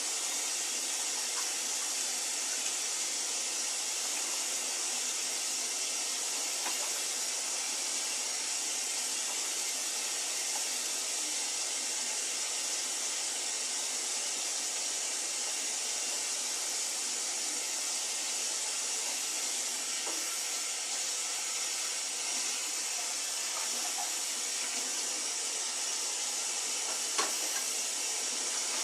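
Kitchen tap running steadily into the sink as meat grinder parts are rinsed and washed under it, with a faint clink near the end.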